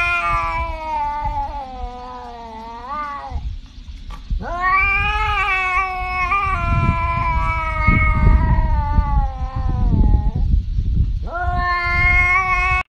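A tabby cat yowling in three long, drawn-out calls, the middle one lasting about six seconds; the last call cuts off abruptly.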